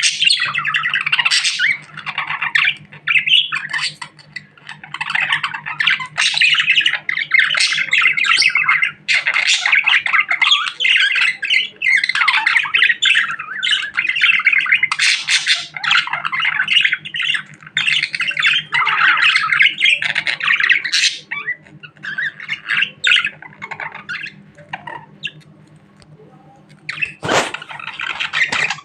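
Budgerigar chattering and chirping excitedly in a rapid, near-continuous stream of warbles and squawks, with a short quieter lull near the end. A steady low hum runs underneath, and there is a single click just before the end.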